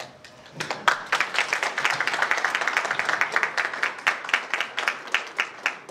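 Audience applauding, a dense patter of many hands clapping that starts about half a second in and thins out near the end.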